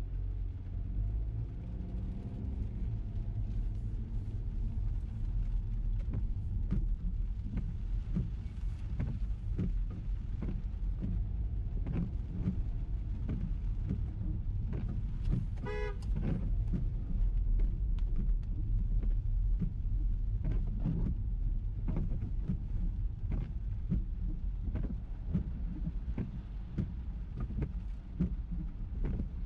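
Ford EcoSport driving in the rain: a steady low rumble of engine and road noise, with irregular ticks of rain striking the car. A short car horn toot sounds about halfway through.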